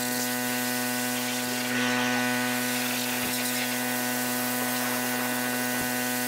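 Pressure washer running steadily: a constant droning hum with the hiss of the water jet spraying onto the floor of a steel military trailer tub, the hiss swelling a little a couple of seconds in.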